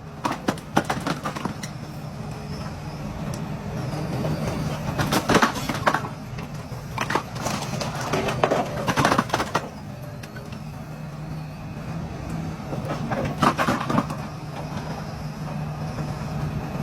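Excavator's diesel engine running steadily, with several bursts of cracking and clattering as a house is broken up and its debris falls.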